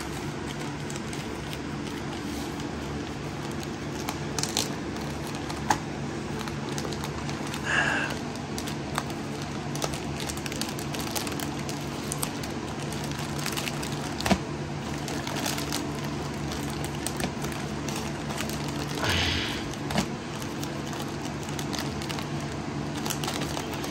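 Plastic poly mailer bag rustling and crinkling in a few short bursts as it is handled and pulled open, over a steady low hum.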